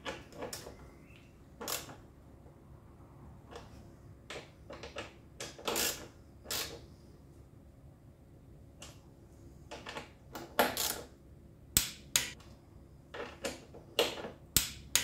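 Hand screwdriver working screws in a motorcycle's tail section: irregular sharp clicks and short scrapes of the tool and parts being handled, coming more often in the second half.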